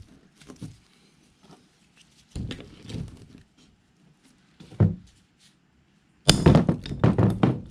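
Hammer blows on a socket, driving a wheel stud out of a car's wheel hub. A few separate metallic knocks come first, then a quick, loud flurry of strikes near the end as the stud comes free.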